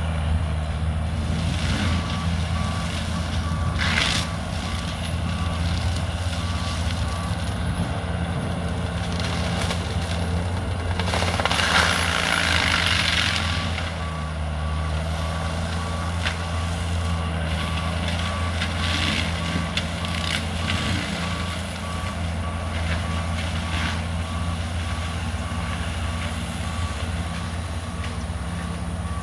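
Forestry mulcher machine's engine running steadily under load, with its backup alarm beeping evenly as it reverses; the beeping pauses for several seconds midway while a louder rush of noise rises for a couple of seconds.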